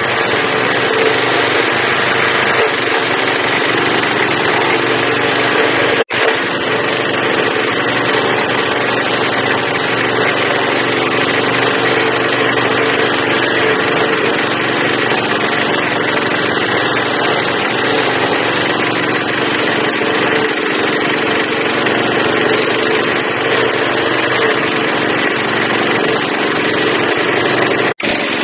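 Stump grinder's engine running steadily. The sound drops out for an instant about six seconds in and again near the end.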